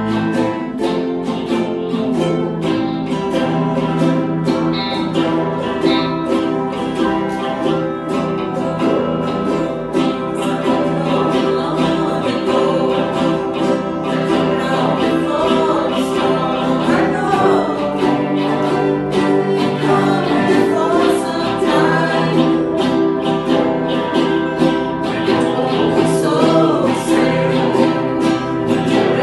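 Strummed acoustic string instruments, ukulele or guitar, playing a steady rhythm in a song that starts straight after a count-in, with singing voices joining about halfway in.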